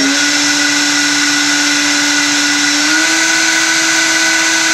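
Gerber Sabre 408 CNC router's spindle motor running at high speed with a steady whine, its pitch stepping up slightly about three seconds in as the spindle speed is raised.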